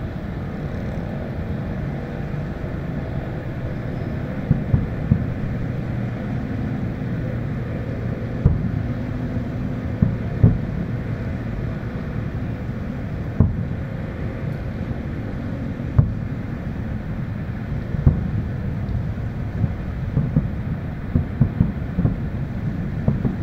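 Distant fireworks: single sharp bangs at irregular intervals a few seconds apart, coming closer together near the end, over a steady low rumble.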